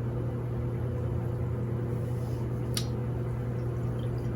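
Steady low mechanical hum, with a faint click about three seconds in.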